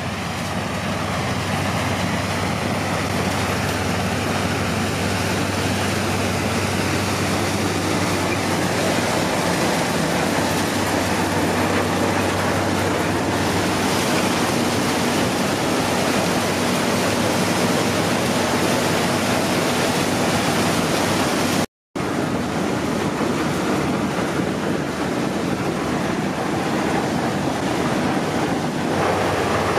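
Bizon BS 110 combine harvester working under load as its six-row corn header cuts dry maize: a dense, steady rush of engine, threshing and stalk noise. It fades in over the first couple of seconds and drops out for an instant about three quarters of the way through.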